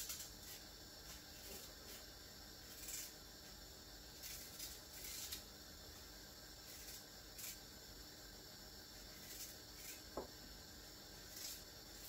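Knife peeling a chayote (chocho) by hand: faint, brief scraping strokes at irregular intervals, a second or two apart.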